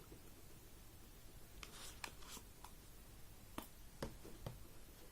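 Faint handling of a phone box and its packaging: a short rustle with light clicks about two seconds in, then a few single soft taps.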